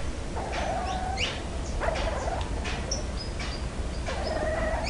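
A puppy barking and growling in a run of short, high-pitched calls, several in a row.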